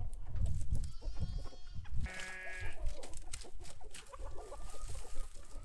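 A farm animal bleats about a second in, swelling louder just after two seconds. Under it, dry brushwood twigs rustle and crackle as they are packed into a hollowed tree stump.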